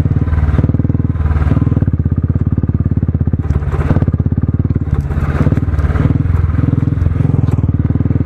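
Motorcycle engine running at a steady speed on a dirt track, its exhaust beat pulsing fast and even, with a few short rushes of noise over it.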